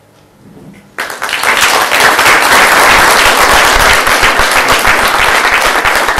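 Theatre audience breaking into loud applause about a second in, many hands clapping at once, as a song ends.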